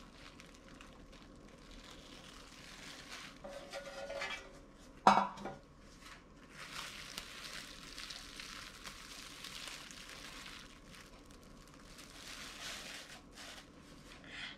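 Plastic cling wrap rustling and crinkling as it is peeled off a chilled cake, with a single sharp clatter about five seconds in as a metal loaf pan is set down on a granite countertop.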